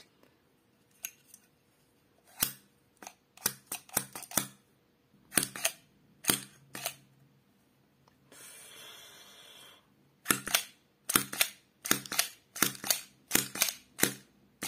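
Blue plastic magic coin box handled, its sliding drawer with a coin inside pushed in and out and clicking and knocking repeatedly; near the end the clicks come quickly, about three a second. About halfway through there is a steady hiss lasting about two seconds.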